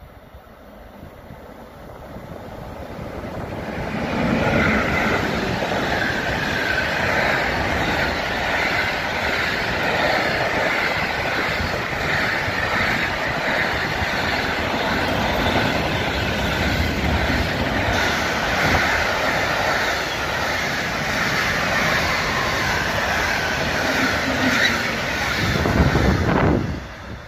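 Intermodal freight train carrying semi-trailers passing close by at speed. It swells over the first few seconds as it approaches, then the wheels make a steady loud noise on the rails. The noise falls away suddenly near the end as the last wagon goes by.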